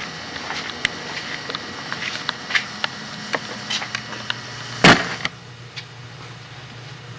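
Cassette tape deck: scattered small clicks over a steady hiss, then one loud clunk about five seconds in, after which the hiss drops away and a low hum remains.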